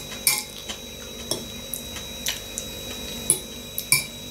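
Cutlery tapping and scraping in a plastic food container while eating, as a string of irregular sharp clicks about every half second.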